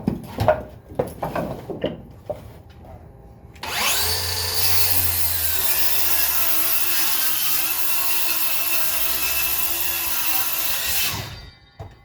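A few handling knocks, then a DeWalt DCS577 60V FlexVolt 7-1/4-inch worm-drive-style cordless circular saw starts, spins up with a rising whine and cuts steadily through a board set to a 1.5-inch blade depth. It runs for about seven seconds and winds down quickly near the end.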